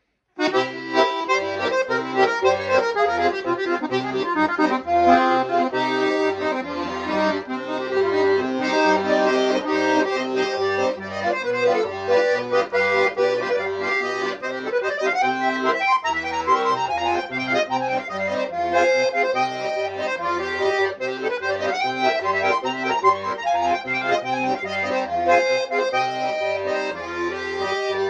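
Shuya-made 'Romans' bayan (Russian chromatic button accordion) being played, starting about half a second in. A melody runs on the right-hand buttons over a regular pattern of bass notes and chords from the left-hand buttons.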